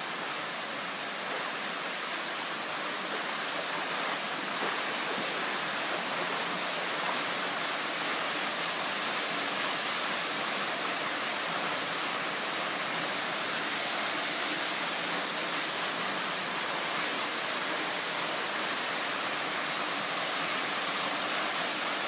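Steady rush of a waterfall, an even roar of falling water with no breaks.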